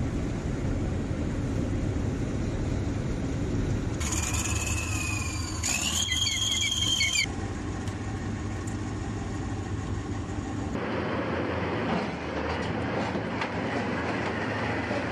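Low rumble of heavy vehicle engines and rail cars. A high metallic squeal with sliding pitch comes in from about four to seven seconds in. The background changes abruptly several times, as between cut-together clips.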